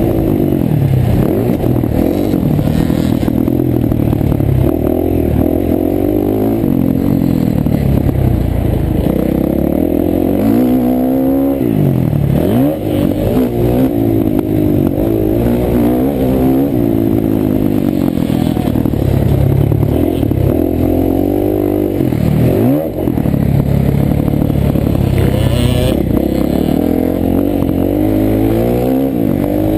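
Motocross bike engine revving hard as the rider races, its pitch climbing and falling with the throttle and gear changes, heard from a helmet-mounted camera. The revs drop steeply and climb again twice, about twelve and twenty-two seconds in.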